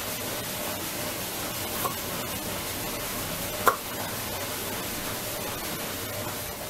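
Kitchen knife cutting garlic cloves on a plastic cutting board: a few light taps, the sharpest about three and a half seconds in, over a steady background hiss.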